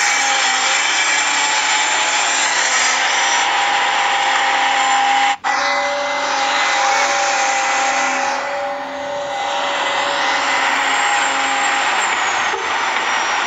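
Small electric motors and gears of a remote-control mini excavator whining steadily as it works, cutting out for an instant about five seconds in.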